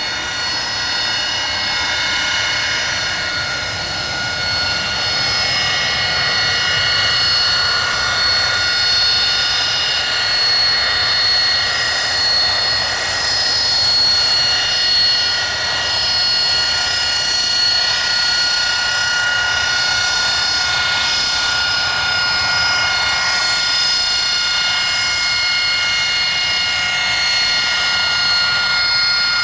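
AV-8B Harrier II's Pegasus turbofan running with a loud, steady high-pitched whine made of several tones over a low rumble, growing louder over the first few seconds and then holding.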